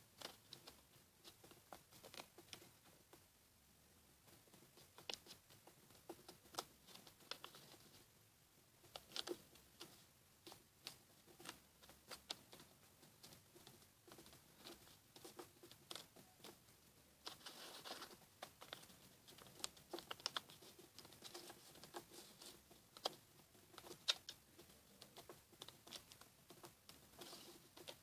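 Faint, scattered rustling and crinkling of a sheet of paper being folded and creased by hand, with soft irregular ticks. A longer rustle comes about two-thirds of the way through.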